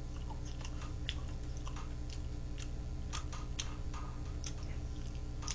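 A person eating: chewing and mouth noises with scattered light, irregular clicks from wooden chopsticks against a plastic food tray, over a steady low hum.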